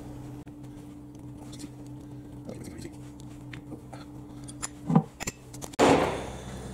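Faint metallic clicks and clinks as the broken handle boss is worked off the carriage apron of a lathe by hand, over a steady low hum. A sharper knock comes about five seconds in, and a louder noisy clatter just before the end.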